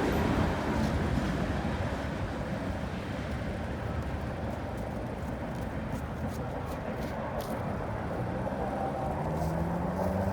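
Rumble of a passing freight train fading as it moves off. Near the end, a road vehicle's engine rises in pitch as it pulls away.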